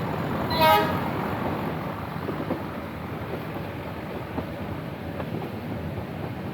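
Nilgiri Mountain Railway diesel locomotive giving one short horn toot under a second in, then the train running with a steady rumble and a few light clicks from the rails.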